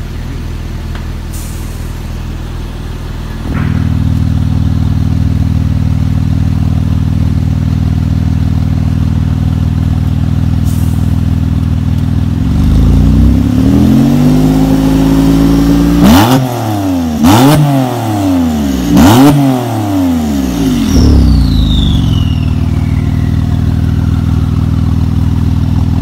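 Porsche 991.2 Turbo S's twin-turbo 3.8-litre flat-six idling through an Armytrix valvetronic exhaust; the idle gets suddenly louder a few seconds in. About halfway the revs climb slowly, then three quick blips with sharp crackles, and the revs fall back to idle with a falling whistle.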